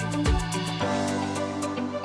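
Background music with a steady beat; the bass drops out about a second in.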